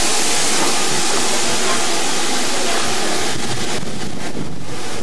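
Steam locomotive hissing loudly and steadily; about three seconds in the hiss thins and quick clicks and rattles come through.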